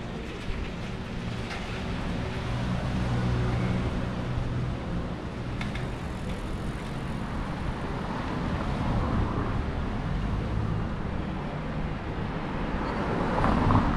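Street traffic: a motor vehicle's engine running close by, its hum swelling for a few seconds, with another vehicle passing near the end.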